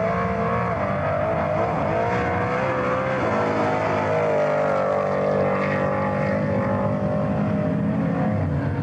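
Car engine running hard, a sustained drone whose pitch wavers slightly but holds without a clear rev-up.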